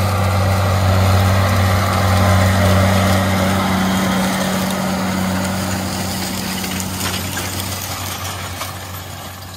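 John Deere 9620T tracked tractor's 500 hp engine running under load as it pulls a 30 ft McFarlane reel disk past, a steady deep drone that slowly fades as the tractor moves away.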